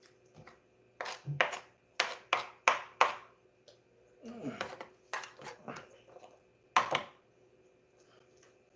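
Kitchen utensils and dishes clinking and scraping as a wrap is filled: a quick run of sharp knocks and scrapes, a second cluster a little later, and one loud knock near the end.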